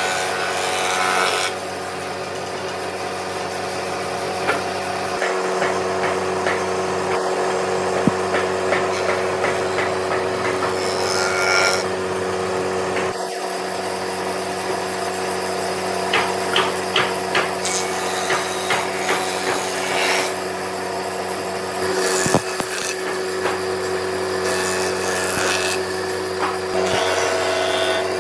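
Hand-tool work on wood, rubbing and rasping strokes over a steady machine hum, with runs of quick short strokes.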